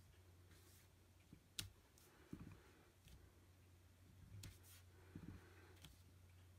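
Clear acrylic stamp block tapped and pressed onto card stock while stamping small dots: a handful of faint clicks and soft taps, over a low steady hum.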